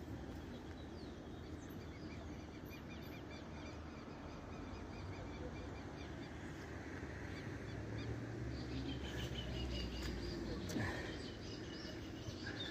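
Faint outdoor ambience of birds chirping over a steady background hiss, with a low rumble of wind or handling on the microphone about eight seconds in.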